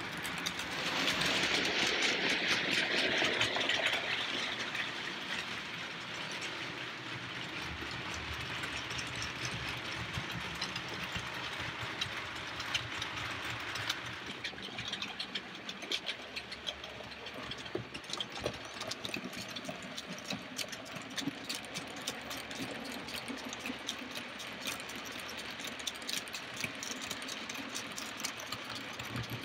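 OO-gauge model trains running on the layout track: a steady electric motor whirr with a rapid run of small clicks from the wheels on the rails. It is loudest in the first few seconds as a model diesel locomotive passes close, and the sound changes about halfway through.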